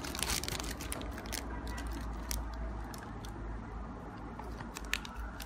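Clear plastic bag wrapped around a remote control crinkling and crackling as it is handled, in irregular small clicks, over a low steady hum.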